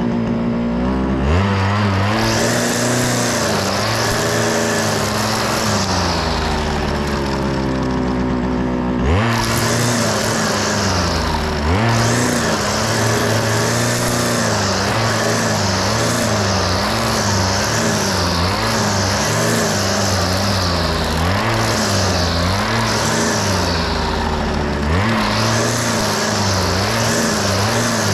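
Petrol string trimmer cutting grass: the engine revs up from idle about a second in, then its speed keeps rising and falling as it cuts, dropping back briefly a couple of times before revving up again.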